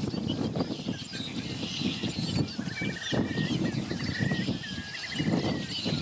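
Several wild birds calling and chirping, with a run of rapid repeated notes from about halfway through, over a steady low rumbling noise.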